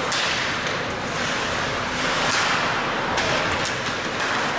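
Ice hockey play in a rink: skates scraping and carving on the ice, with a few sharp stick or puck clacks over steady rink noise.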